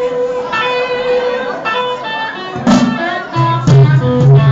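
Live rock band: an electric guitar plays held lead notes alone, then a drum hit comes about two and a half seconds in and bass and the rest of the band join, the song kicking in.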